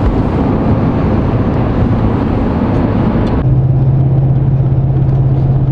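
Road and engine noise inside a moving vehicle's cabin. About three and a half seconds in, the sound changes suddenly to a steady low hum with less hiss.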